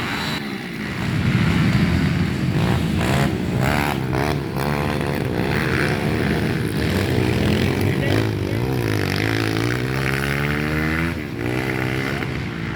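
Trail motorcycle engine revving and being worked through the throttle, its pitch rising and falling. Near the end it climbs steadily for a few seconds under acceleration, then drops off sharply.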